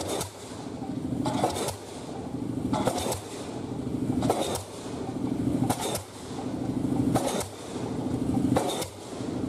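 Pile-driving rig's hammer driving a concrete pile into the ground, striking about once every second and a half, seven blows in all, with a steady engine hum between the blows.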